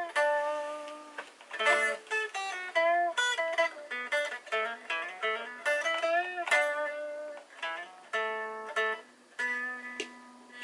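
Greco Les Paul electric guitar played as a single-note melodic line: picked notes that ring and fade, several bent up and down in pitch with vibrato.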